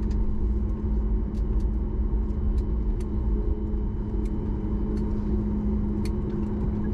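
Jet airliner cabin noise after landing: the steady low rumble of the engines and airframe with a constant hum, and a few light clicks and rattles.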